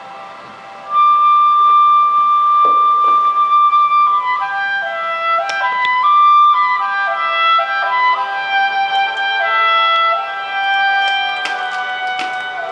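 Background music: a melody that comes in about a second in on a long held note, then moves up and down in steps.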